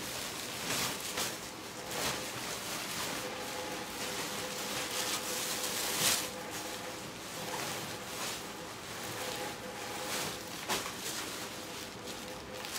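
Intermittent rustling and crinkling of plastic bags of packaged clothing being handled, over a faint steady hum.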